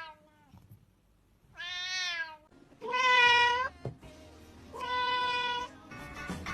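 A domestic cat meowing three times, each meow under a second long, the middle one loudest.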